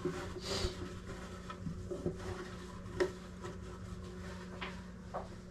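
Faint handling sounds of a bag of cheese being opened and emptied into a food container: a few light, separate clicks and rustles over a low steady hum.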